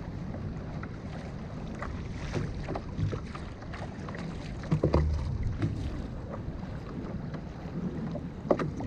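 Wind buffeting the microphone and rough water slapping against a kayak's hull, with scattered knocks and a louder thump about five seconds in and another near the end.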